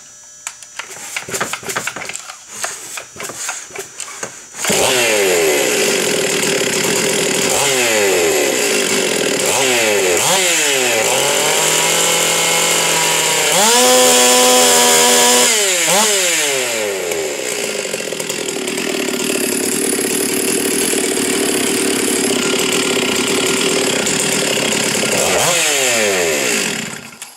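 Ported, big-air-filter, open-muffler Stihl MS 460 76.5 cc two-stroke chainsaw, tuned to run at 13,800 rpm, being pull-started and catching after about four seconds of cranking. It is then revved up and down several times, held at full throttle for about two seconds midway, run more steadily, and wound down near the end.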